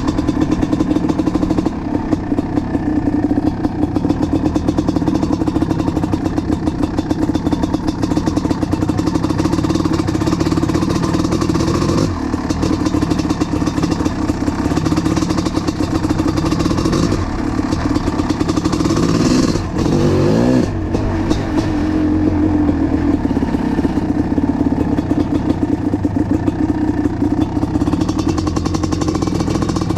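1988 Kawasaki KX500's 500cc single-cylinder two-stroke engine running steadily through an FMF Fatty pipe and silencer, warming up after a cold start, with a short blip of the throttle about two-thirds of the way through.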